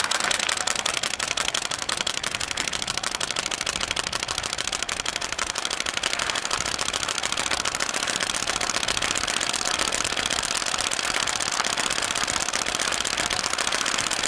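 Playing card flapping against the spokes of a rolling bicycle wheel, a rapid, steady clicking like a typewriter. It serves as a low-tech sound beacon for a blind rider to follow.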